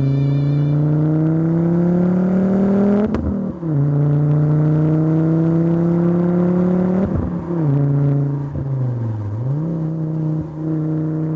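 Volvo V70R's 2.5-litre turbocharged five-cylinder engine pulling hard under acceleration, revs climbing steadily and then dropping sharply at two upshifts, about 3 and 7 seconds in. Near the end the revs dip briefly and come back, then hold steady.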